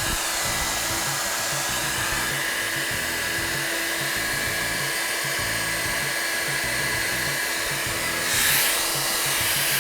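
Panasonic EH-ND61 2000-watt hair dryer running on its maximum heat and speed setting: a steady rush of air with a motor whine. The rush swells briefly louder near the end.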